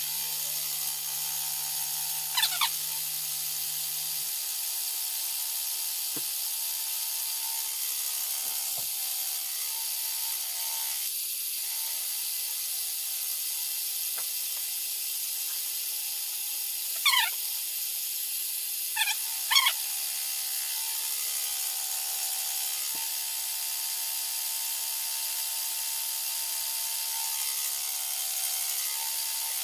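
Grizzly mini mill running a flycutter: a steady motor and spindle whine with a hiss. A few short squeals fall quickly in pitch, once early on and three times in the second half. A lower hum stops a few seconds in.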